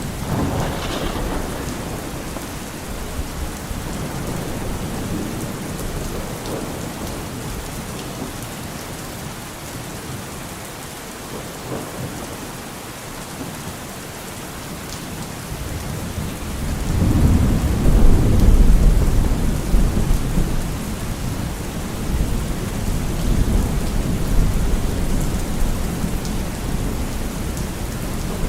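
Steady rain falling, with thunder rumbling: a low roll swells about two-thirds of the way through, peaks, then slowly fades, and a smaller rumble sounds right at the start.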